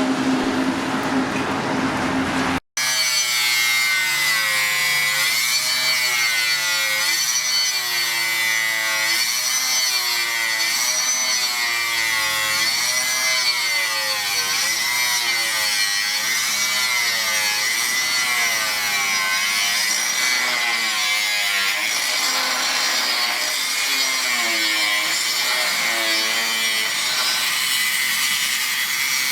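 Steel of a rusty circular saw blade being cut, a continuous grating sound whose pitch rises and falls every second or two. It breaks off for an instant about three seconds in.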